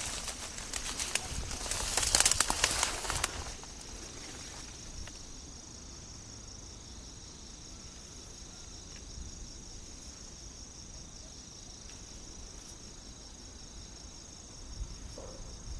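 Rustling and clattering for the first few seconds, then a steady high-pitched pulsing trill of insects.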